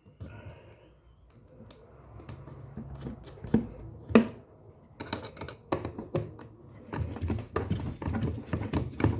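Hand tools clicking and knocking on metal as the gearbox mounting nuts, with spring washers, are fitted and tightened; two louder knocks in the middle, then a busier run of clicks in the second half.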